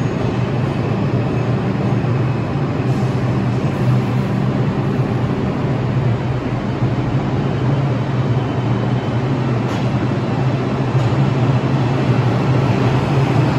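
New York City subway train running, a continuous loud noise with a steady low hum that grows slightly louder near the end.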